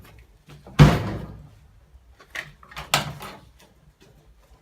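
A Classic Mini's steel door slammed shut about a second in, then two lighter clunks a second and a half later, as the door is opened and shut to check its fit and gaps.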